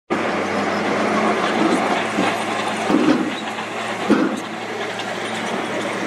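Heavy diesel dump truck engines running steadily as the tipper beds are raised to unload soil, with several metallic clunks and rattles in the first few seconds.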